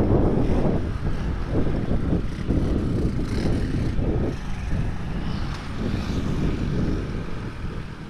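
Motorcycle riding along at speed, with the engine running and wind rushing over the microphone as a steady low rumble that eases slightly near the end.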